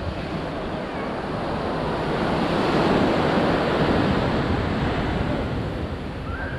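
Sea surf breaking on a beach: a rushing wash of water that swells to its loudest about halfway through and then eases off, with some wind on the microphone.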